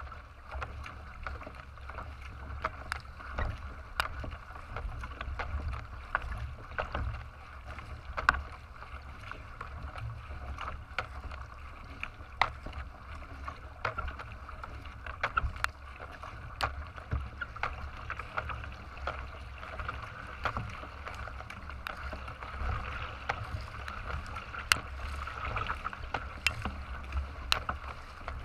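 Water rushing and splashing along the bow of a marathon racing kayak paddled at speed, with irregular sharp splashes from paddle blades over a steady low rumble.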